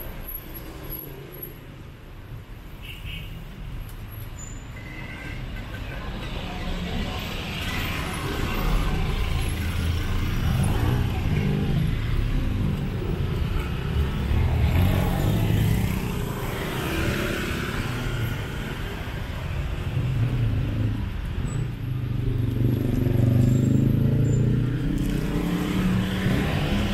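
Street traffic: cars, taxis and motorbikes passing close by with their engines running. The sound swells as vehicles go past, around ten seconds in and again near the end.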